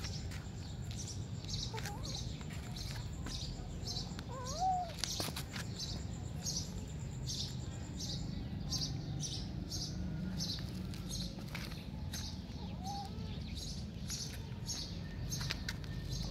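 Kittens meowing now and then, the clearest and loudest meow about four and a half seconds in, over a steady run of short high chirps, about two or three a second, and a low rumble.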